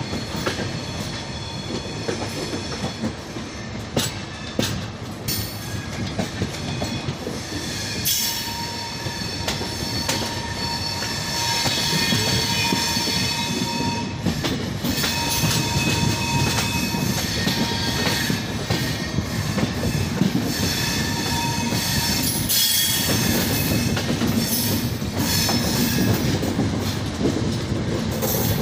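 Passenger express train rolling into a station: wheels knock over rail joints, and a thin wheel or brake squeal comes and goes from about eight seconds in. The running noise grows louder from about twelve seconds in.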